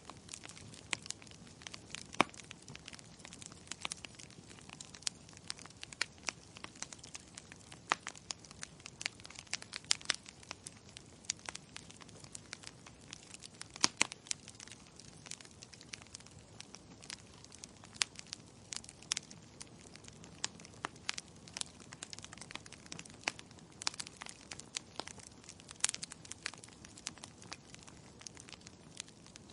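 Logs burning in a fireplace, crackling with irregular sharp pops over a soft steady hiss; a few pops stand out louder than the rest.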